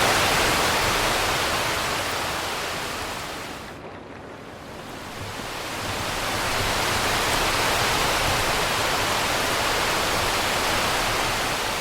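Steady rain hiss with no distinct drops. It fades down about four seconds in and swells back up a couple of seconds later.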